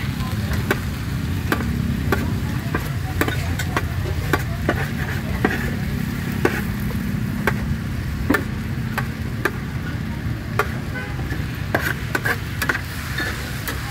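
Street-food cooking: a metal utensil clinks sharply against a pan about twice a second, over food frying and a steady low rumble.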